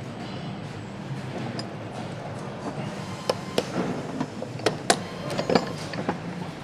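Metal parts and hand tools clinking and knocking on a motorcycle engine assembly line, a scatter of sharp clicks over a steady factory hum. The knocks come mostly in the second half.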